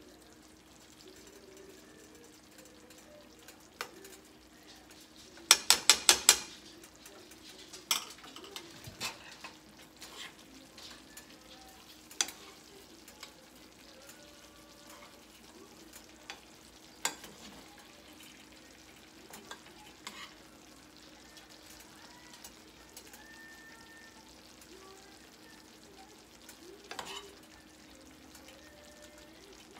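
Creamy sauce simmering in a skillet with a faint sizzle, over a steady low hum, while metal utensils scrape and clink against the pan and plate. About six seconds in comes a quick run of about six sharp taps, the loudest sound, with single clinks scattered after.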